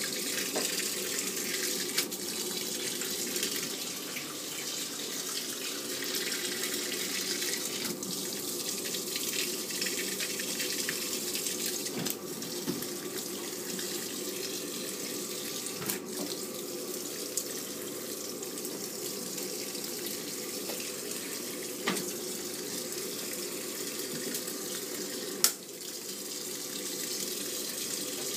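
Samsung 7.5 kg top-load washing machine with water rushing steadily into its tub as it fills, under a faint steady hum. A few light clicks sound through it, one louder near the end.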